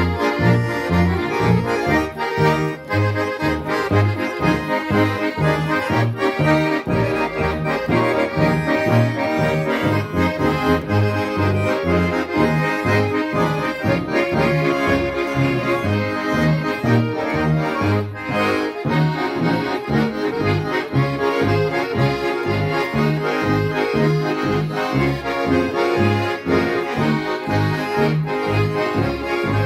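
A Swiss Ländler band playing a schottische: a Schwyzerörgeli and two chromatic button accordions carry the melody and chords over a double bass that sounds a steady, alternating bass note on the beat.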